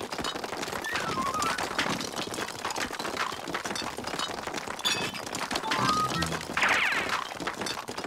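Cartoon underscore music over a busy clatter of ice cubes pouring and tumbling from a hose. About two-thirds of the way in, a brief, bright warbling sound effect is the loudest thing.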